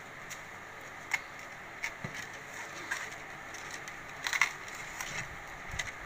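A hand mixing and kneading pieces of fish in a wet cornflour-and-masala coating in a steel bowl, making irregular soft clicks and crackles, with the loudest cluster about four seconds in.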